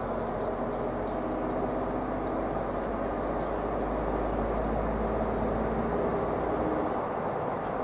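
Škoda Fabia II 1.2 TDI three-cylinder diesel engine running under way, heard from inside the cabin, a steady drone mixed with tyre and road noise.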